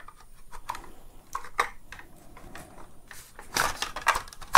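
Plastic housing parts of a Dyson V10 cordless vacuum being turned and fitted together by hand: scattered light clicks and scrapes, getting busier about three and a half seconds in.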